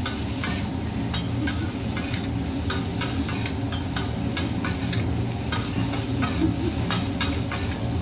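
Food sizzling on a hibachi griddle, with frequent quick clicks and scrapes of the chef's spatulas against the hot plate.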